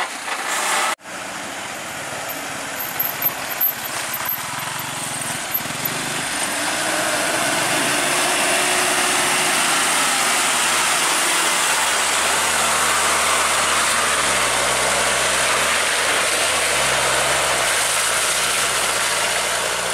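Diesel engine of a loaded dump truck running under load as it crawls past, with a dense steady noise over it. The engine note steps up and down several times near the end.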